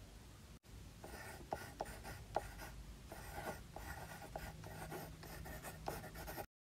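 Handwriting: quick scratchy strokes broken by small taps and short pauses, which stops suddenly near the end.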